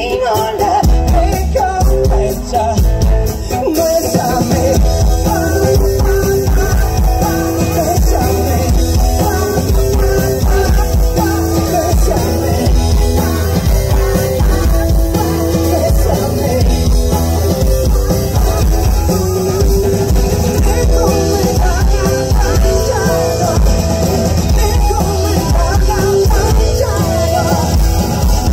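A live rock band playing loud: a drum kit with cymbals, an acoustic guitar, and a woman singing lead.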